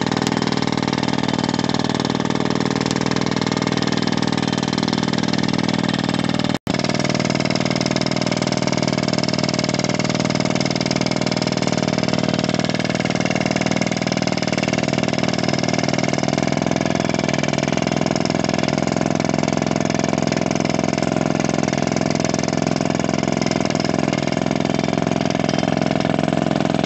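Mindrill Yodha-200 pneumatic crawler drill drilling into the ground, its air-driven hammer and rotation running steadily while compressed air blows dust out of the hole. The sound cuts out for an instant about six and a half seconds in, then carries on.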